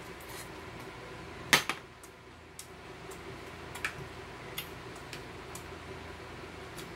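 Metal chopsticks clicking against tableware during a meal: a few scattered taps, with one sharper clack about a second and a half in, over a steady low room hum.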